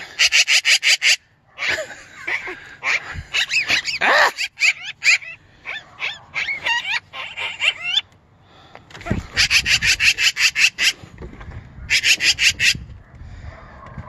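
A black-billed magpie chattering: three bursts of harsh, rapid rattling, about nine notes a second (right at the start, about nine seconds in, and about twelve seconds in), with varied squeaky, gliding calls between them.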